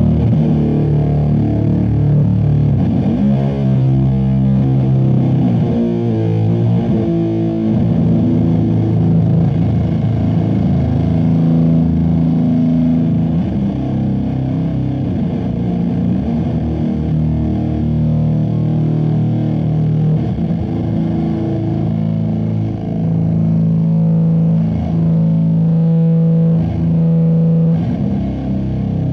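Heavily fuzzed electric guitar through the Zlatorog Golden Horn Fuzz pedal, playing slow, low notes and chords that are each held for several seconds.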